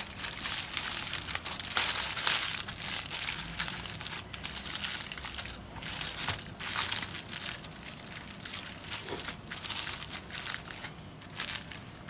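Aluminium foil crinkling and crackling in irregular bursts as hands fold and crimp it closed around a whole fish, loudest about two seconds in and quieter towards the end.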